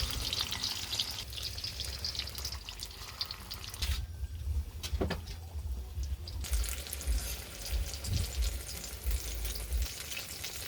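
Food frying in hot oil in a pan: a steady crackling sizzle that drops away for about two seconds near the middle, where a low rumble takes over, then comes back.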